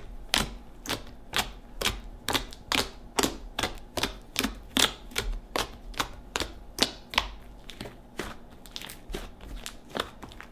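A hand squishing and poking a giant mound of fluffy soft serve slime made of glue and shaving cream, giving a run of sharp clicks and pops, about two or three a second and a little quicker near the end.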